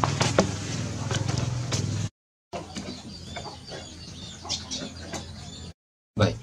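Chickens clucking and chirping, mixed with scattered clicks and knocks. The sound cuts out completely twice, briefly, and a loud knock comes just before the end.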